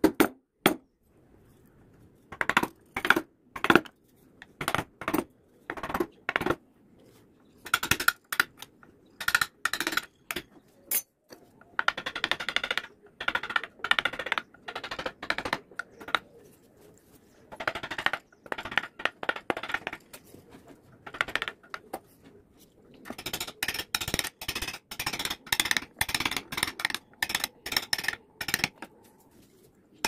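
Steel chisel cutting into teak by hand: runs of short, sharp cutting strokes and scrapes with quiet gaps between them, longer paring scrapes about halfway through, and a fast string of strokes near the end.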